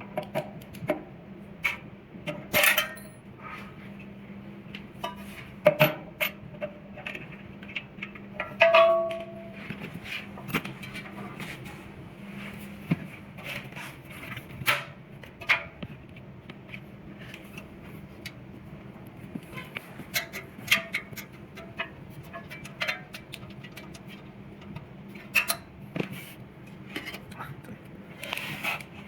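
Metal parts of a hose reel box being handled and taken apart: scattered clicks, taps and clanks, with one louder ringing clank about nine seconds in, over a steady low hum.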